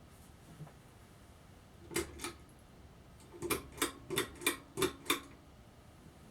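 Sharp clicks of a ceiling fan's pull-chain switch: two clicks, then six more in a quicker, evenly spaced run, as the chain is worked.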